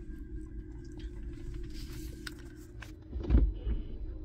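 Hybrid pickup creeping forward on its electric motor in four-wheel drive, heard from the cabin as a steady low hum. About three seconds in comes a heavy thump and rumble as the truck jolts onto the dirt incline.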